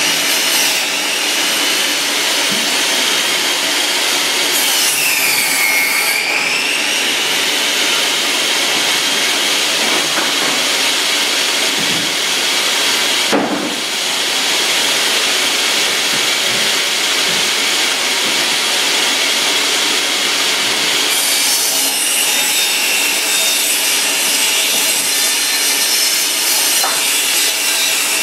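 Makita portable table saw running and cutting reclaimed wooden floorboards: a steady high whine over the rasp of the blade in the wood, dipping in pitch about five seconds in and again after about twenty seconds. A single sharp knock about halfway through.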